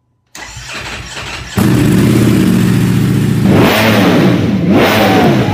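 A motorcycle engine: quieter at first, then loud from about a second and a half in, with the revs swinging up and down several times near the end.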